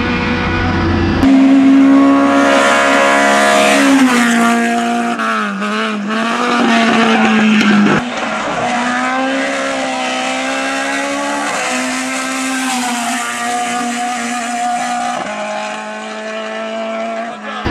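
The 1.6-litre naturally aspirated four-cylinder engine of a LADA 2101 race car, held at high revs under full load, with tyres squealing at times. The note holds steady, sags and wavers, and jumps abruptly a few times.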